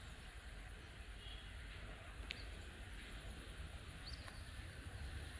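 Faint open-air ambience by the water: a low steady rumble and hiss, with two faint ticks and a faint bird chirp or two.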